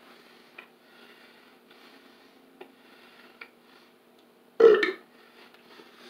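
A man's short, loud burp about four and a half seconds in, falling in pitch, over a faint steady hum.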